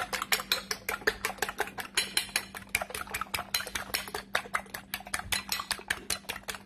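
Fork beating raw eggs in a ceramic bowl: rapid, even clicking of the tines against the bowl, about eight to ten strokes a second.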